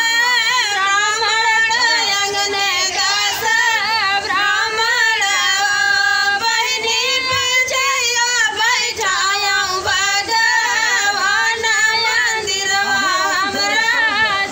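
Women singing a sohar, a devotional Hindi folk song, together into a handheld microphone, with long wavering held notes and no instruments.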